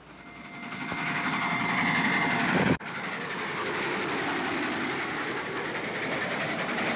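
Steam-hauled express train running at speed: a rushing rumble that builds over the first few seconds with a steady high tone above it, breaks off abruptly a little under three seconds in, then carries on as an even rumble.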